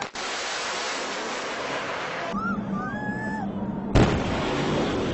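A jet aircraft passing fast and low, first a broad, loud jet roar. After a cut come a few voices of onlookers over a steady hum. Then a single sharp, loud boom about four seconds in: a sonic boom from the jet flying faster than the speed of sound.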